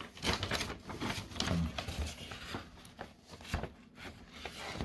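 Folded paper poster rustling and crinkling as it is handled and unfolded, in an irregular run of crackles.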